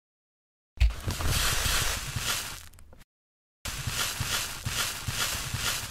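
Shredded paper banknotes poured into a ceramic bowl, rustling and crackling. Two spells, the first starting suddenly with a low thump; each fades out.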